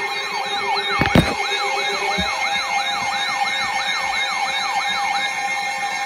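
A siren in a fast yelp, rising and falling about three to four times a second before stopping near the end, with a loud thump about a second in.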